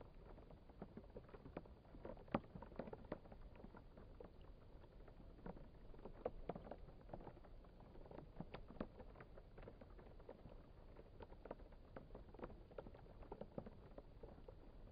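Raindrops falling on a black plastic tarp and into the shallow puddle on it: a faint, irregular patter of soft taps and plinks, several a second, with one louder drop about two seconds in.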